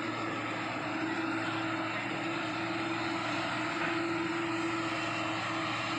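Diesel engine of a Hyundai 210 crawler excavator running steadily, a constant drone with no sudden knocks or changes.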